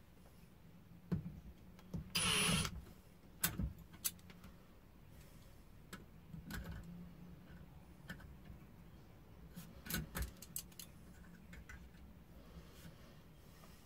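Scattered clicks and clinks of a metal tube and water-pump pliers being handled, with one short loud rushing burst about two seconds in.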